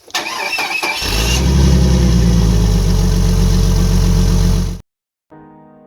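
Jeep engine cranking for about a second, catching, and running with a steady deep note, then cutting off suddenly. Quiet piano music begins near the end.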